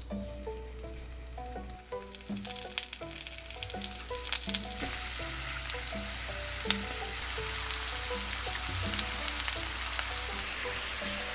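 Burdock root sticks coated in glutinous rice flour sizzling in hot oil in a frying pan as they are laid in. Scattered crackles start about two seconds in and build into a dense, steady sizzle about halfway through.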